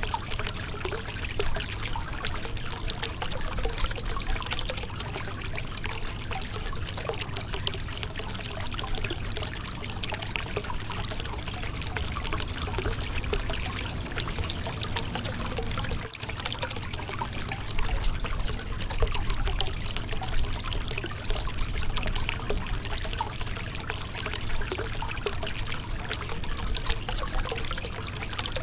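Shallow river water running and trickling over rocks in a steady, continuous babble, with a momentary break a little past halfway.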